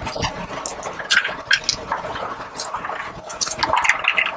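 Steel flange bolts and cup washers being fitted by hand through a UHMW plastic plate into an aluminum skid plate: irregular light metallic clicks and clinks.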